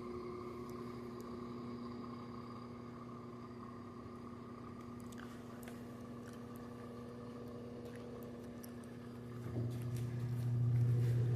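LG Turbo Drum washing machine running empty on its spin cycle: a steady motor hum with a faint higher tone, growing louder about nine and a half seconds in.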